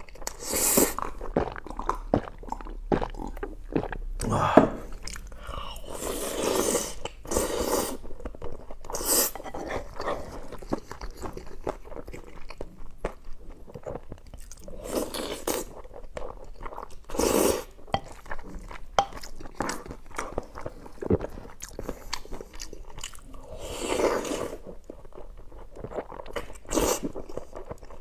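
A person eating spicy chicken with rice and gravy, biting and chewing in irregular bursts, some bites crunchy.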